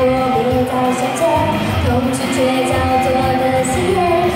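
A young woman singing a pop theme song live into a microphone, holding long gliding notes over band accompaniment with a steady beat.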